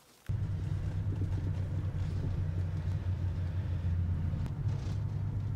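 Steady low rumble of a car's engine and road noise heard from inside the cabin while driving, starting abruptly about a quarter second in.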